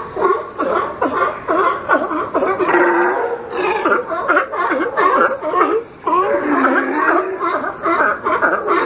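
A crowd of California sea lions hauled out close together, many calling over one another in a continuous chorus of barks and grunts, with a short lull about six seconds in.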